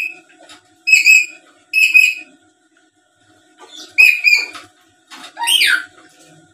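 Black-capped lory giving loud whistled calls: two short calls about a second apart, a third about four seconds in, then a longer call near the end that slides down in pitch.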